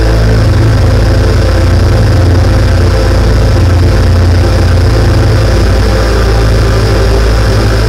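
Live electronic music played on synthesizers, including a Korg keyboard: a loud, steady, deep bass drone with held tones layered above it and no clear beat.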